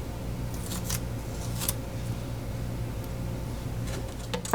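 A few short scratchy rustles, like tape or small parts being handled, over a steady low hum that cuts off abruptly near the end.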